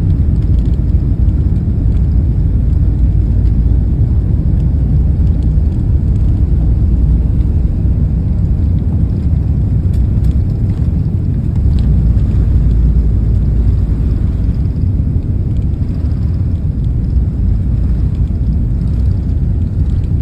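Airbus A380's four jet engines at takeoff power: a loud, steady, deep rumble.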